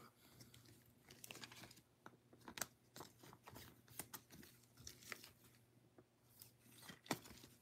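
Faint, scattered rustling and clicking of plastic card sleeves and a rigid toploader being handled by gloved hands, with a slightly sharper click about two and a half seconds in and another near the end.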